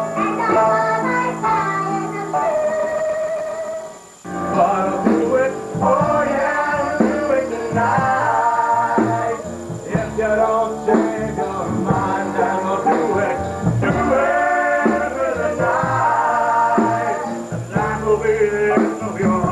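Musical theatre song: a woman singing with instrumental accompaniment, a brief break about four seconds in, then a man singing over the accompaniment.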